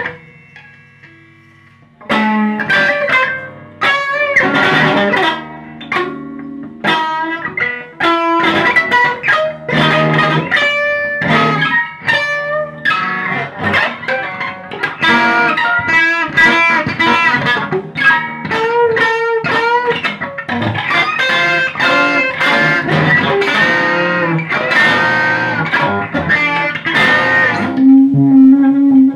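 Electric guitar played solo, with fast, dense picked notes and strums. It opens with a quiet pause of about two seconds.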